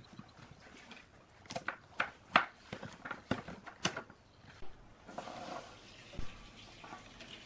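Handling noise from a black metal equipment panel and the small switch and connector parts being fitted into it: a quick run of about seven sharp clicks and knocks, then a softer scraping rustle about five seconds in.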